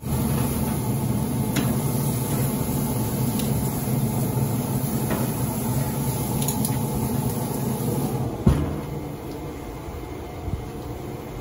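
Pellet grill running with its lid open: a steady low rush of the fire and fan, with light clicks of a spatula on the grate as burgers are turned. About eight and a half seconds in the lid shuts with a thud, and the running noise drops lower.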